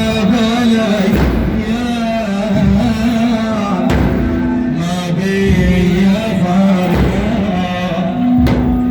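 Music: a male voice chanting a melodic Arabic religious lament, holding long, wavering, ornamented notes, with a few percussion strokes.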